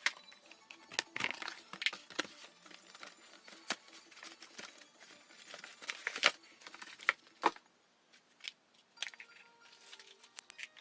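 Packaging being handled during an unboxing: crinkling and tearing with many sharp clicks and knocks, over faint background music.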